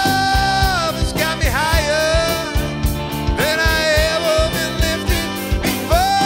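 Live rock band playing an instrumental break: drums and bass keep a steady beat under a lead instrument holding long notes that scoop up and bend down in pitch.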